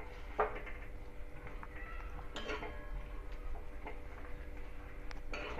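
A steel spoon scraping and knocking against an iron kadhai as crumbled milk curds are stirred in sugar syrup, a few separate scrapes over a faint steady hum.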